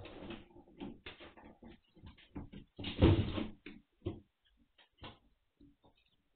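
Five-week-old Magyar Vizsla puppies scrambling over a wooden board ramp and hard plastic shells: irregular knocks and scrapes of paws and claws, with one louder clatter about three seconds in.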